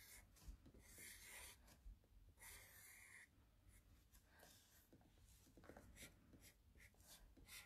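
Faint felt-tip marker strokes scratching on paper as circles and shapes are drawn. There are three longer strokes in the first three seconds, then shorter, quicker ones.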